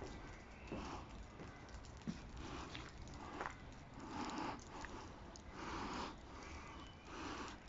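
Faint breathing close to the microphone, a soft breath about every second and a half, with a couple of small clicks between breaths.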